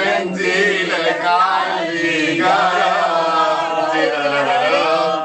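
Several people singing together in a chant-like unison, a folk song carried on long, wavering notes.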